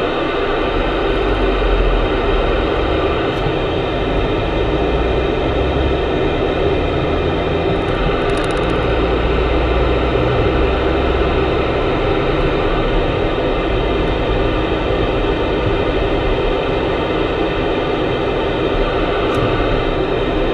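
Steady hiss of CB radio static with no one transmitting, over the low engine and road rumble of a Mitsubishi car pulling away and driving on. The rumble grows louder about a second in and again about eight seconds in.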